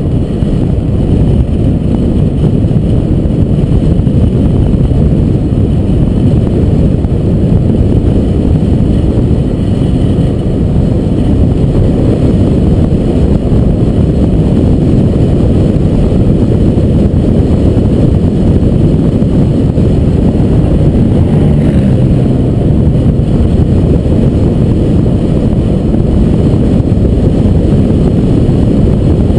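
A car driving along a paved road: a steady low rumble of engine, tyre and wind noise that holds even throughout.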